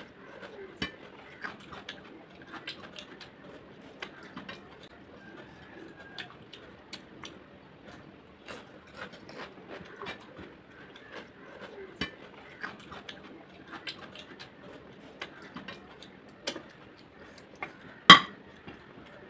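Eating by hand from a plate of rice and chicken curry: soft chewing and mouth sounds with small clicks of fingers and food on the plate. Near the end, one sharp clink of a small ceramic bowl.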